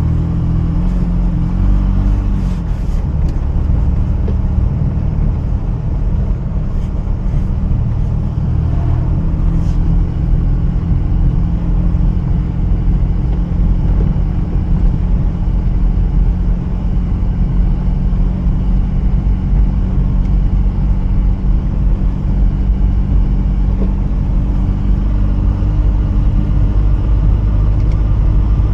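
Mazda RX-8's twin-rotor Wankel rotary engine running under way, with tyre and road noise. The engine pitch shifts during the first few seconds, then holds a steady drone as the car cruises slowly. A few faint clicks come in the first several seconds.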